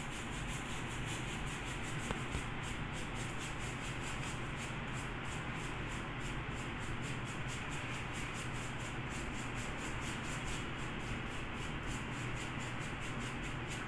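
Paintbrush rubbing back and forth on a plastered wall in quick, even strokes, over a steady hiss.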